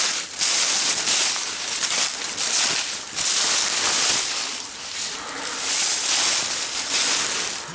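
Footsteps crunching and shuffling through deep dry leaf litter in quick, uneven strides.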